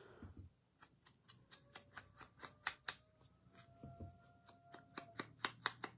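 Light, irregular tapping of an ink applicator dabbed along the edges of a paper piece, several taps a second. Faintly in the background, from about a second and a half in to about five seconds, a dog howls one long, slowly rising note.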